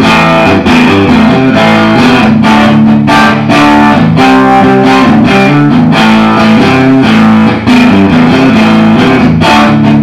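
Rickenbacker electric guitar played through an amplifier: a riff of quick, repeated strummed chords.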